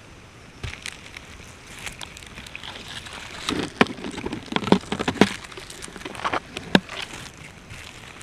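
Leaves, stems and dry leaf litter rustling, snapping and crackling against a GoPro mounted on a box turtle's shell as the turtle pushes through forest undergrowth. The sharp crackles and snaps come thickest in the middle.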